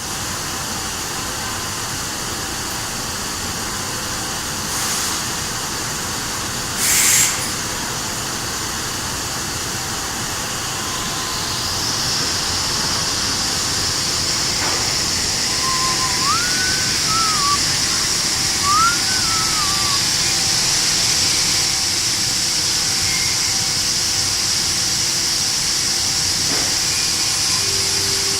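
CNC machine's belt sanding unit running over a steady machine hum, with its whine rising about eleven seconds in as it comes up to speed and then holding steady. Two short hisses come before it, around five and seven seconds in.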